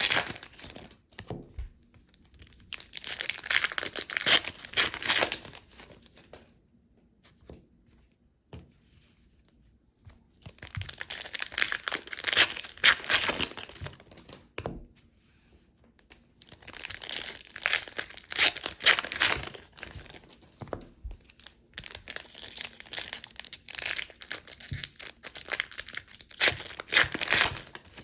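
Trading-card pack wrappers being torn open and crinkled by hand, in four bursts of several seconds each with short quiet pauses between them.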